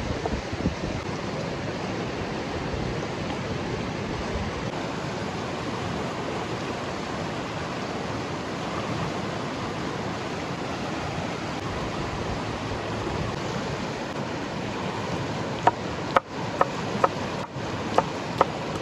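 Steady rushing of a river. In the last few seconds it is joined by a quick series of sharp knocks.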